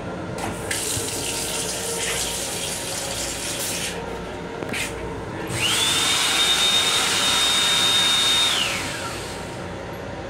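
A train-restroom hand dryer blowing air with a steady hiss, broken by a few clicks. About five and a half seconds in, a louder motor whine spins up, holds one steady pitch for about three seconds, then winds down.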